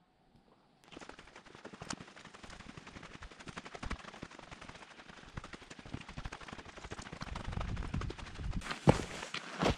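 Fast hiking footsteps crunching on a dirt-and-gravel trail, starting suddenly about a second in and growing louder toward the end.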